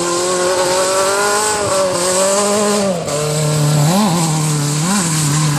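Autocross car's engine running hard on a dirt track, holding a steady high note, then dropping in pitch about three seconds in. Two quick throttle blips follow about a second apart as the car slides through a corner, over a hiss of tyre and gravel noise.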